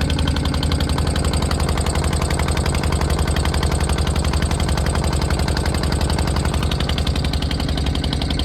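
An engine running steadily at an even speed, with a fast pulsing beat.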